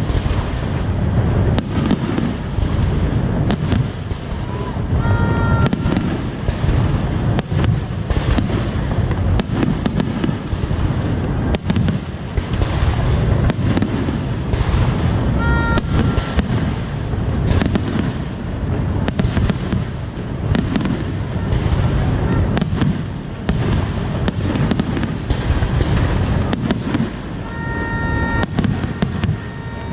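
Aerial fireworks display going off continuously: dense rapid bangs and crackles over a constant low rumble of explosions. A brief higher tone cuts through three times.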